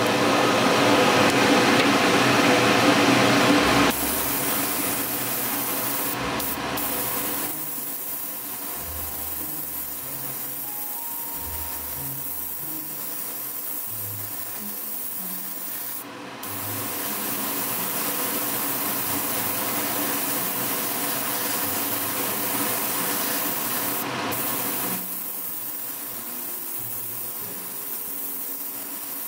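A 0.5 mm airbrush running at about 30 psi, hissing as it sprays pearl white paint. It comes in two long bursts, one ending about four seconds in and another from about sixteen to twenty-five seconds, with quieter hiss between.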